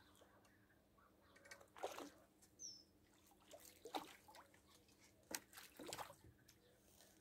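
Small hooked fish splashing at the water surface as it is reeled in on a float rod: several short, irregular splashes, the loudest about two seconds in, at four seconds and near the end.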